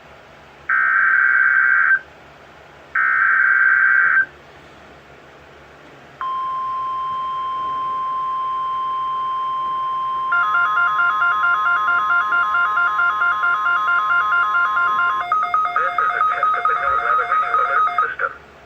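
NOAA Weather Radio alert signal: two short buzzing bursts of the SAME digital alert header, then after a pause of about two seconds the steady 1050 Hz warning alarm tone, held for about nine seconds. About four seconds into that tone, a rapidly pulsing electronic alarm of several tones starts over it and keeps going for a few seconds after the steady tone stops.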